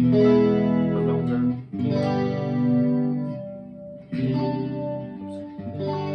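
Clean electric guitar through a TC Electronic 3rd Dimension chorus pedal on setting 3, a subtle chorus. The same chord is strummed about four times and left to ring between strikes.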